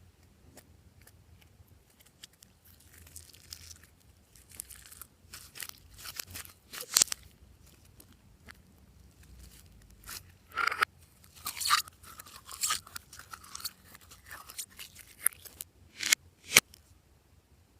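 Hands kneading and squeezing glossy slime with mixed-in pieces, making irregular short squishes and pops. The sharpest pops come about seven seconds in and again near the end.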